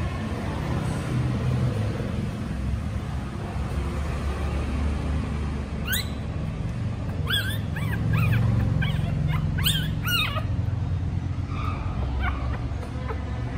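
Newborn puppy whimpering and squealing in a string of short, high cries that bend up and down in pitch, starting about halfway in, over a steady low rumble.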